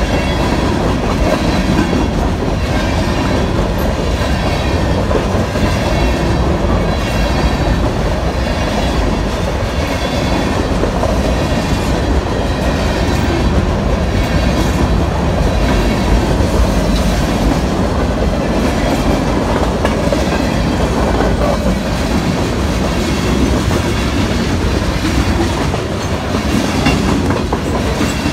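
Loaded freight cars (covered hoppers, then a centerbeam lumber flatcar) rolling past, a steady loud rumble with the wheels clicking rhythmically over the rail joints.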